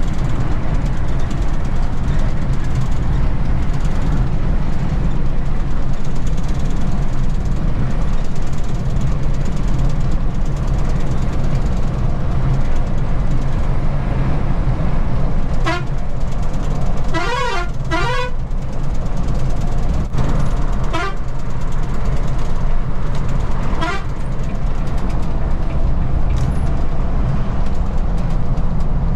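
Steady low drone of a Volvo B11R coach running at highway speed, heard from the driver's cabin: its diesel engine and tyre noise. From a little past halfway, a horn toots several times, the longest a pair of warbling blasts.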